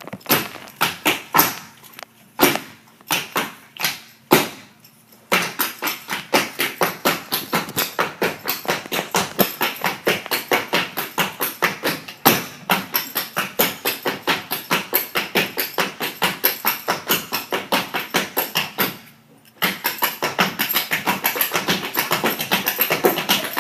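Dancers' shoes striking the floor in fast, rhythmic steps with no music, several taps a second. There are two short breaks, one about five seconds in and one near the end.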